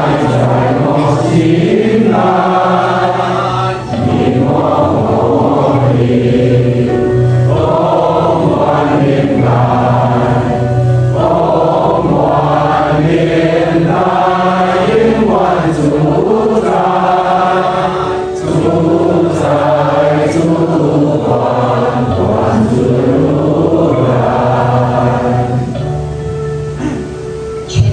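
A congregation singing a slow hymn together in Chinese, a chant-like melody in phrases over steady low held notes, fading out near the end.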